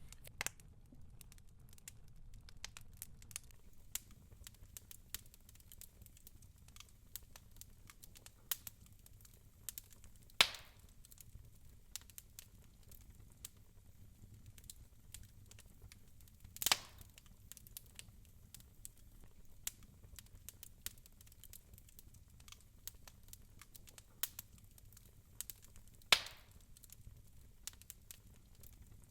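Fireplace ambience: a wood fire crackling with scattered small ticks over a faint low rumble, and three louder sharp pops.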